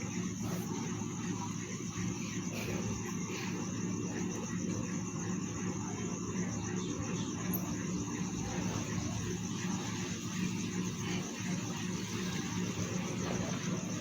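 Steady low engine hum, with insects trilling continuously in a high, finely pulsing band over it.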